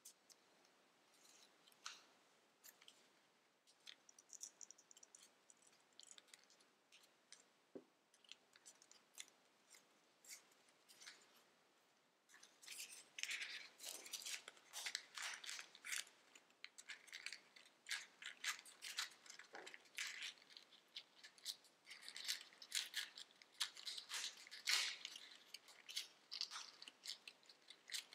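Tissue-foil origami paper crinkling and crackling under the fingers as it is folded and shaped, in irregular crisp crackles. Faint and sparse at first, then busier and louder from about twelve seconds in.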